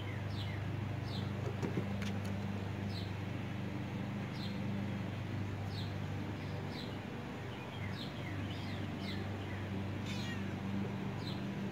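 A steady low mechanical hum, with a bird giving a short, falling chirp over and over, about once a second.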